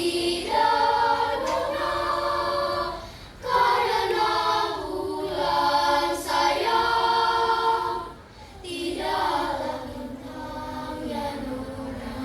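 Elementary-school children's choir singing held notes in three phrases, with short breaths about three and eight seconds in.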